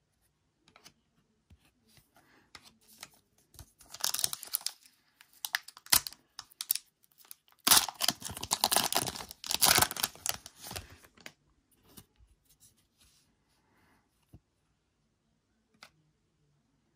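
A foil trading card pack being torn open and crinkled by hand, loudest from about eight to eleven seconds in, with a shorter spell of crinkling about four seconds in. Light clicks of cards being handled come in between.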